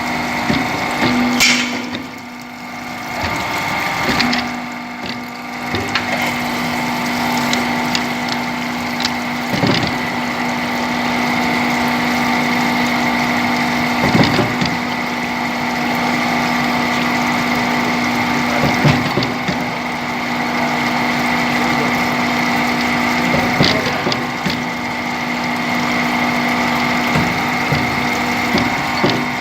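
Automatic double-end centre drilling machine running, a steady hum from its motors and drive, with a sharp knock about every four to five seconds as it works through its cycle.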